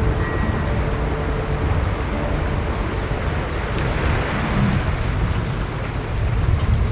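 Pickup truck wading through muddy floodwater: water sloshing and splashing around the wheels over a low rumble, with wind buffeting the microphone in the open truck bed. The splashing swells briefly about four seconds in.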